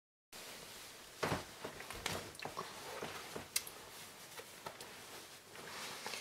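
Quiet small-room tone with a few soft clicks and rustles scattered through it, cutting in after a moment of dead silence.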